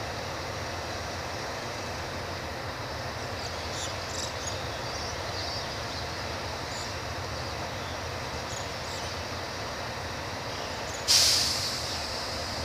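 Diesel locomotive approaching from a distance, its engine a steady low rumble. Near the end, a sudden loud hiss rises and fades over about a second.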